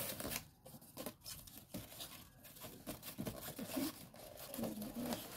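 Cardboard packaging being handled: an inner carton sliding and scraping out of its outer box sleeve, with irregular rustles and light knocks of cardboard.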